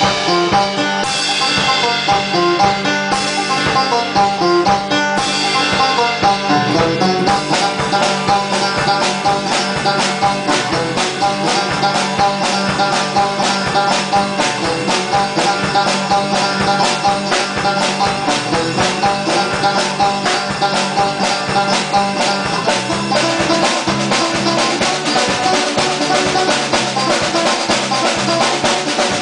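Small band playing a song live: strummed acoustic and electric guitars over a steady drum beat.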